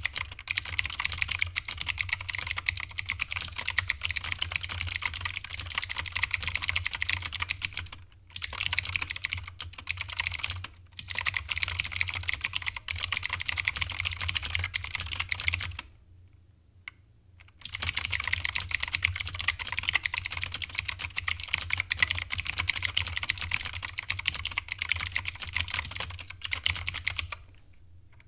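Fast continuous typing on a keyboard with enthusiast switches, a dense stream of key clicks. It stops briefly twice and pauses for about a second and a half past the middle before resuming.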